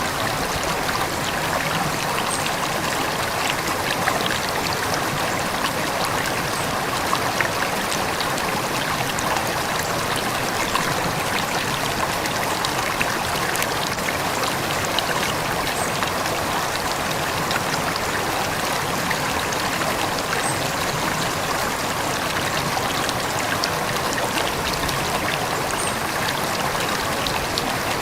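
River water running steadily over stones: a continuous rushing and babbling with small splashes throughout.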